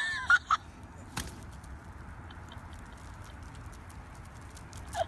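Wild turkeys calling: a wavering call and two short clucks in the first second, a short call again near the end, with faint ticks and hiss between.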